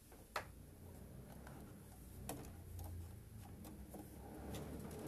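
Scattered, irregular light clicks and taps from handling a sewing machine as it is threaded with black thread, over a faint low hum that grows louder toward the end.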